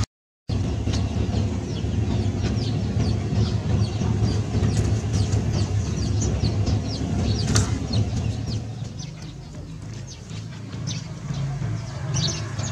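Chickens clucking and chicks peeping, many short high calls, over a steady low hum. The sound drops out for half a second at the very start.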